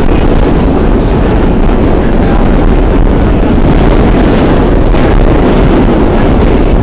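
Vintage R1/9 subway car running at speed, heard from on board: a loud, steady rumble of the wheels on the rails and the running gear.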